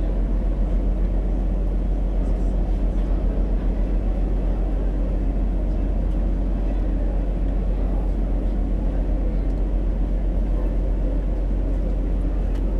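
Ferry's diesel engine droning steadily, heard from on deck, with a low, even throb.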